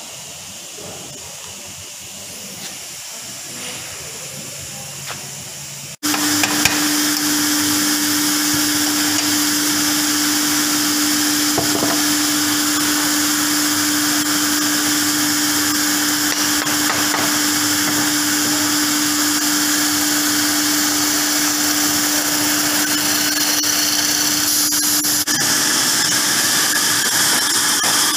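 Dowel-processing woodworking machine starting abruptly about six seconds in, then running steadily and loudly with one constant hum. Before that there is only a quieter workshop background with a few faint ticks.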